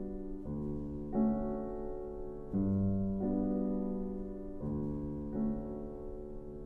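Slow piano music: sustained chords, a new one struck every second or two.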